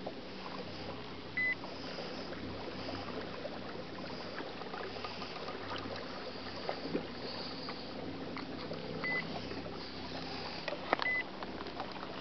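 Minn Kota electric trolling motor pushing a jet boat slowly, a quiet steady hum with water lapping and trickling at the hull. Three short high electronic beeps come about a second and a half in, around nine seconds and around eleven seconds, with a sharp click near the last one.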